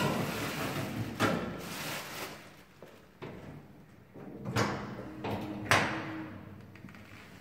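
Plastic bin liner rustling as it is fitted into the station's waste cabinet, with a knock about a second in. Then the cabinet door is shut and latched: two sharp knocks about a second apart near the middle, the second the loudest.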